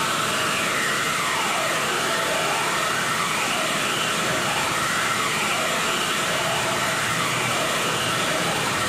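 Electronic noise drone for an experimental performance: a steady, loud hiss whose tone sweeps down and back up again and again, about every two to three seconds, like a phaser effect.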